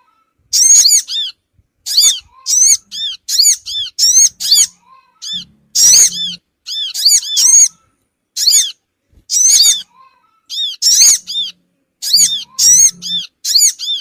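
Olive-backed sunbirds calling, played as a lure track: loud, high-pitched chirps in quick runs of a few notes, a run about every second with short gaps between.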